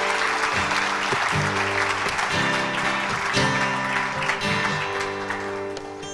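Audience applause over plucked string instruments playing held chords; the clapping thins out toward the end while the chords ring on.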